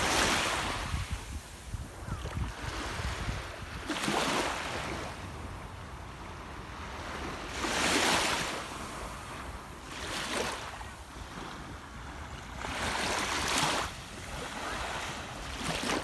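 Small waves lapping onto a sandy shore, each wash a soft hiss that swells and fades, coming about every two to four seconds.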